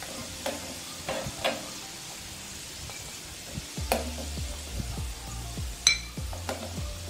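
Samosas deep-frying in hot oil, a steady sizzle, with a metal slotted spoon clicking against the pan several times as they are turned.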